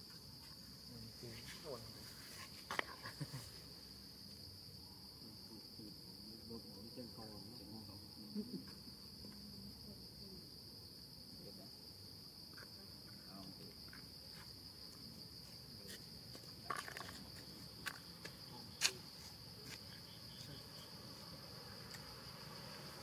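Steady high-pitched drone of insects, with a few faint clicks and knocks scattered through.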